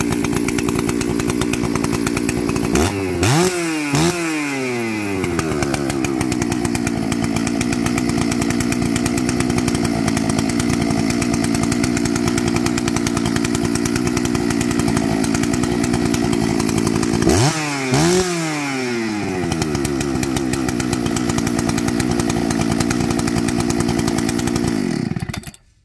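Husqvarna 288XP chainsaw's 87cc two-stroke engine idling steadily, revved up sharply twice in quick succession about three seconds in and again about seventeen seconds in, each time falling back to idle. The engine stops near the end.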